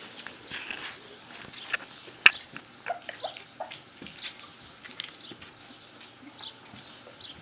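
Young Rottweiler puppies, about 3½ weeks old, give small high squeaks and whimpers as they tussle in a pile, with one sharp click a little over two seconds in.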